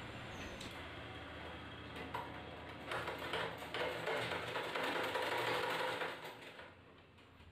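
Black domestic sewing machine stitching a seam through cotton fabric, its needle mechanism running in a steady rapid rhythm. It gets louder about three seconds in, then dies away near the end.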